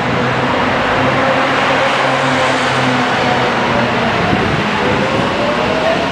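Korail commuter electric train pulling out of a station, its wheels and running gear rumbling steadily. From about four seconds in, the traction motors whine, rising in pitch as it speeds up.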